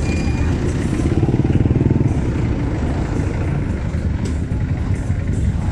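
Small motorcycle engines running in slow street traffic. One close engine gets louder with a rapid, even pulsing for about two seconds near the start, then settles back.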